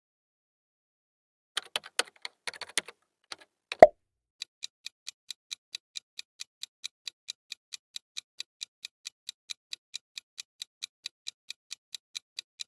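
A quiz countdown timer's clock-ticking sound effect: steady, high, short ticks at about three to four a second, counting down the answer time. Before the ticking starts come a few scattered clicks and one sharp pop.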